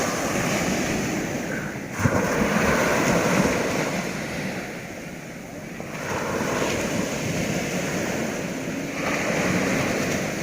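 Sea water rushing and breaking in waves, with wind buffeting the microphone. It surges suddenly about two seconds in, eases off around five seconds, then builds again.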